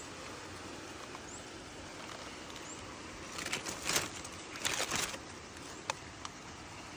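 Steady rain, an even soft hiss, with a couple of seconds of rustling and scraping around the middle and two small clicks. A few faint, short high chirps come in the first seconds.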